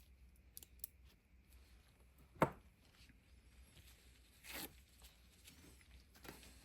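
Faint handling sounds from work on bicycle hub parts: scattered small clicks, one sharp click about two and a half seconds in, and a short scrape or rub a couple of seconds later.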